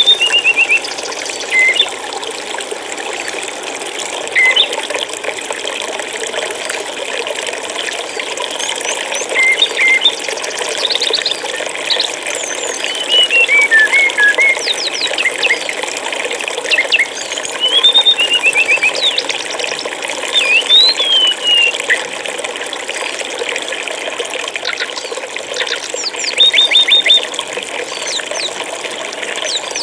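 Steady rush of flowing stream water, with small songbirds giving short whistles, chirps and quick trills over it every few seconds.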